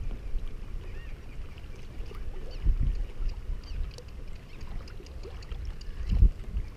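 Wind rumbling across the microphone, with water lapping at a kayak's hull and a couple of low thumps about three and six seconds in.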